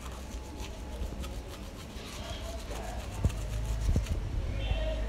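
Manual toothbrush scrubbing teeth in quick, repeated strokes, with a low rumble underneath.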